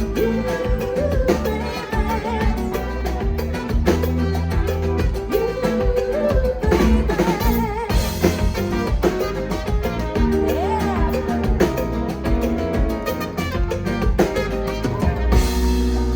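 Live Latin pop band playing a Christmas song, with drum kit, percussion and held, wavering vocal notes. Near the end the band thins to a bass-heavy passage.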